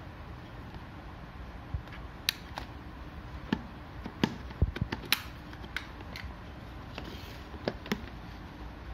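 Scattered sharp plastic clicks and knocks, bunched in the middle, from hands handling a plug-in phone charger and plastic cable-reel extension sockets, over steady background hiss.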